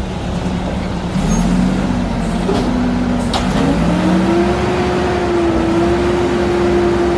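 Mack McNeilus front-loader garbage truck running, its engine revving up in two steps and holding the higher speed, with a sharp click about three seconds in.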